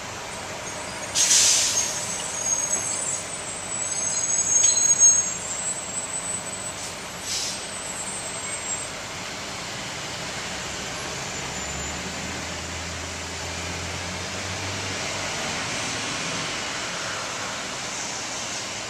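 City street traffic heard from inside a car: a short, loud air-brake hiss about a second in, high brake squeals over the next few seconds, then a steady traffic rumble.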